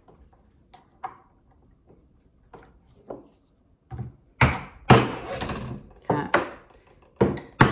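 Light clicks of small parts being handled, then a run of about seven sharp, loud knocks from about four seconds in as a claw hammer and a white plastic part are picked up and knocked against a wooden tabletop.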